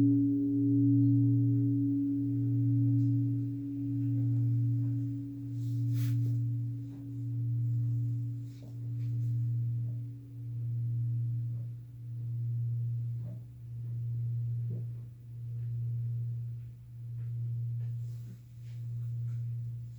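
Japanese temple bell (bonshō) dying away after a strike: a deep hum that swells and fades about every second and a half, with a higher tone above it that fades out over about ten seconds.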